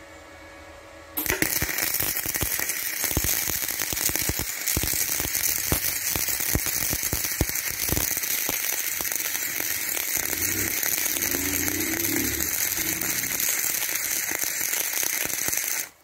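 Gasless flux-cored MIG welding arc from a Boxer Migflex 160 BV welder, crackling steadily as a bead is laid. It strikes about a second in and cuts off suddenly near the end when the trigger is released.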